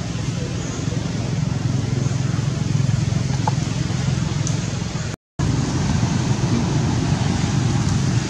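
Steady low rumble of outdoor background noise, broken by a sudden brief dropout about five seconds in.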